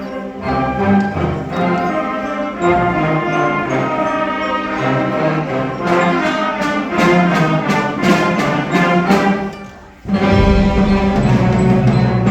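An orchestra with brass playing sustained chords; the music thins out and fades just before ten seconds in, then the full ensemble comes back in suddenly and loudly with a heavy low bass entry.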